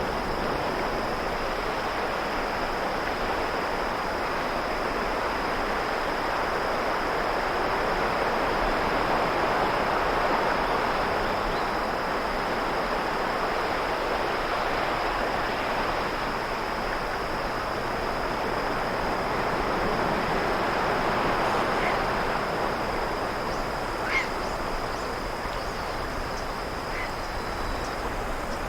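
Ocean surf washing onto the shore, swelling and easing off twice, with insects trilling in one steady high, unbroken note. A few short high chirps come near the end.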